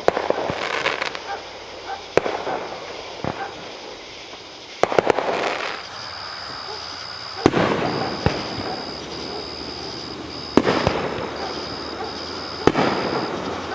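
Aerial fireworks shells bursting: sharp bangs every second or two, several in quick succession about five seconds in, each followed by a crackling, echoing tail.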